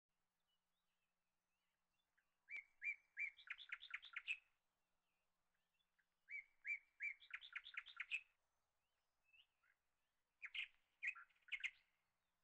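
A small songbird singing three short bursts of song about four seconds apart; the first two are a few spaced notes quickening into a rapid trill, the last is shorter.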